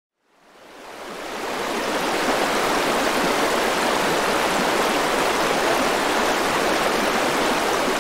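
Steady rushing of water, fading in over the first two seconds and then holding even.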